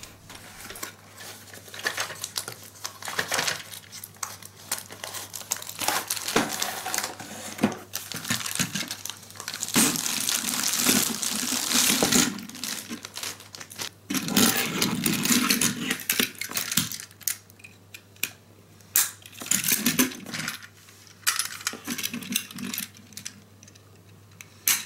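Handling sounds of a Plarail E3 Tsubasa toy shinkansen being unboxed: cardboard box and plastic packaging rustling and crinkling, with clicks and knocks as the plastic train cars are set down on a wooden floor and coupled together. The longest stretch of rustling comes around the middle.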